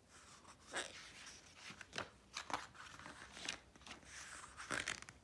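Pages of a picture book being turned by hand: soft paper rustling and sliding in several irregular swishes.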